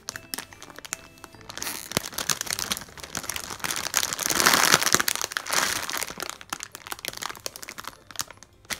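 A thin clear plastic packaging bag crinkling and crackling as hands squeeze and turn a large foam squishy toy inside it, loudest about halfway through. Faint background music runs underneath.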